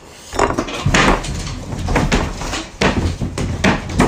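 A rapid, irregular series of knocks and bumps close to the microphone, starting about a third of a second in, with a heavy low thud under them.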